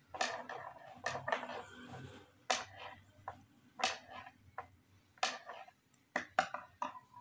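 Metal knitting needles clicking lightly against each other as purl stitches are worked, about a dozen irregular taps with soft yarn handling between them.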